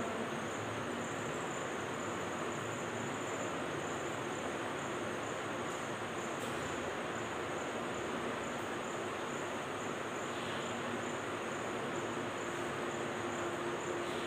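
Faint scratching of chalk drawing lines on a blackboard, over a steady background hiss and a faint high, evenly pulsing tone.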